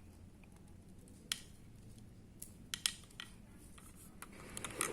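Crimping pliers squeezing a ferrule onto a wire: a handful of sharp, irregular metal clicks from the tool's jaws and handles, a few clustered near the end.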